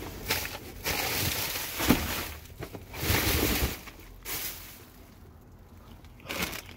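Plastic bags rustling and crinkling in several bursts as they are shoved aside, with a short knock about two seconds in.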